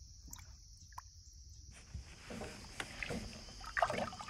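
Water splashing and sloshing as a released bass kicks away from the side of the boat, starting about halfway through and loudest near the end, over a steady high-pitched hiss.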